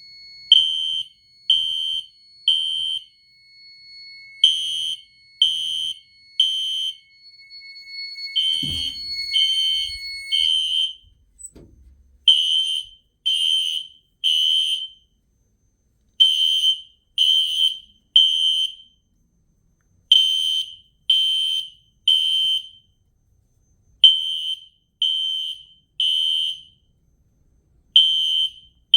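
System Sensor Spectra Alert Classic horn-strobes sounding an electromechanical-tone temporal code 3 alarm: three short loud beeps, then a pause, repeating about every four seconds. A steady high-pitched tone sounds underneath until about ten seconds in, and there are a couple of dull thumps around then.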